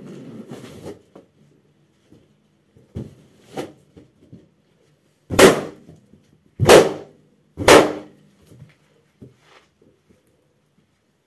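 Latex balloons being stomped underfoot: rubbing and squeezing of a balloon pressed under a stockinged foot, a couple of small knocks, then three loud, sharp pops a little over a second apart.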